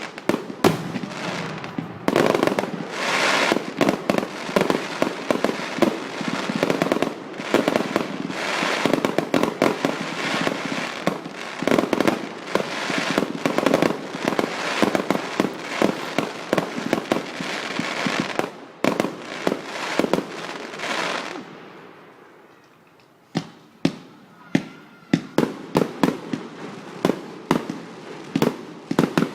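Fireworks display: a dense barrage of bangs and crackling for about twenty seconds, dying away briefly, then separate sharp bangs about one to two a second.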